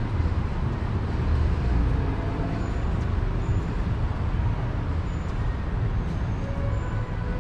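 Steady low rumble of outdoor city ambience, with traffic noise mixed in. A few faint, brief high chirps sound several times.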